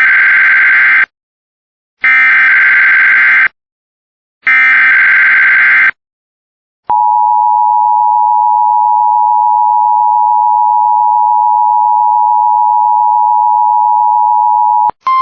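NOAA Weather Radio SAME header: three bursts of warbling digital data tones, each about a second and a half long with short silent gaps between them. These are followed by the weather radio warning alarm tone, a single steady high tone held for about eight seconds. This is the encoded opening of a Required Weekly Test of the tone and SAME alert systems.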